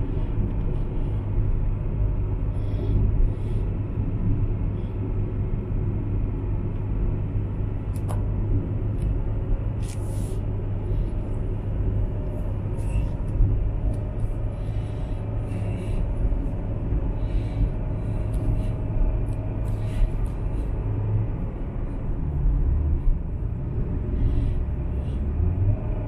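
Steady low rumble of a car driving at highway speed, heard inside the cabin: engine and tyre road noise, with a few faint ticks scattered through it.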